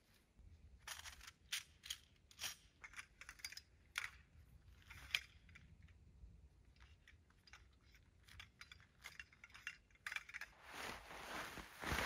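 A large tipi tent being unpacked by hand: scattered light clicks and clinks of its parts being handled, then a swelling rustle of the tent fabric being pulled out and spread near the end.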